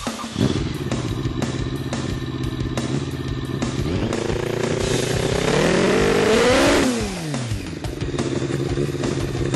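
Mazda rotary engine fired up with the starter switch and catching within the first half second, then running steadily through its exhaust pipe. About four seconds in it is revved up, and about three seconds later it drops back to idle.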